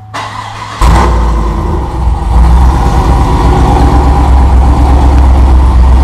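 2014 Chevrolet Silverado's 5.3-litre V8, with a Brian Tooley stage 1 cam, long-tube headers and a catless Y-pipe, cranks and fires up a little under a second in. It then idles loudly with an uneven, pulsing exhaust note that grows slightly louder about two seconds in.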